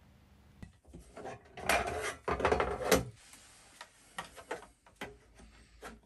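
A burst of rubbing and rustling, then scattered light clicks and knocks as cables and plastic parts on a battery cart are handled.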